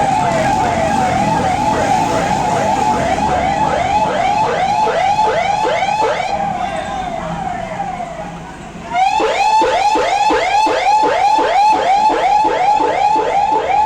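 Electronic vehicle sirens on a fast yelp, about three quick pitch sweeps a second, two overlapping at first. They fade away around eight seconds in, then a louder siren cuts in abruptly about nine seconds in.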